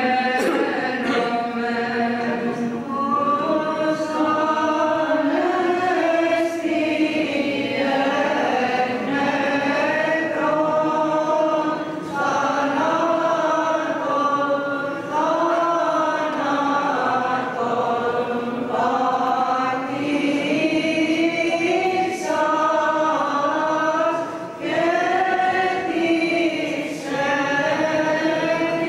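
Greek Orthodox Byzantine chant sung by a group of voices as a slow, continuous melody, with short breaks between phrases.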